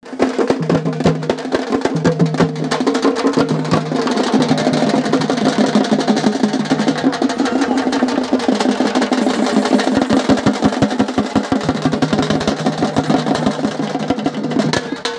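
Festival procession drums beaten fast and loud in a dense, unbroken roll of strokes, with a held low tone sounding under them for much of the time.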